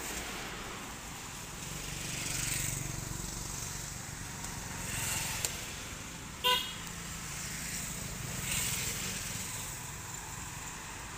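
Road traffic passing, swelling and fading three times, with one short vehicle horn toot a little past halfway.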